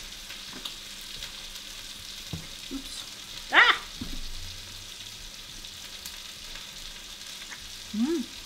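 A person's rising 'mmm' of appreciation while tasting food, about three and a half seconds in, and a short low 'mm' near the end, over a steady hiss.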